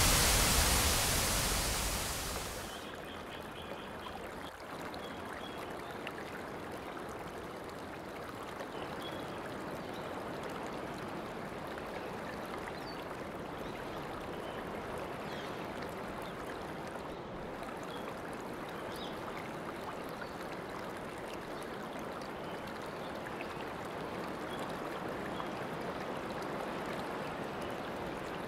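Running water of a stream, a steady rushing noise. It is much louder for the first two or three seconds, then drops to an even, lower level.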